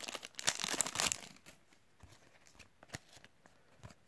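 Foil trading-card sachet crinkling in the hands for about the first second, then a few light clicks of cards being handled.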